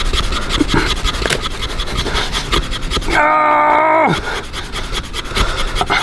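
A thin rod scraped hard and fast along a wooden board, quick regular rasping strokes while trying to light a fire. About three seconds in, a person lets out a held, strained vocal note for about a second that drops in pitch as it ends.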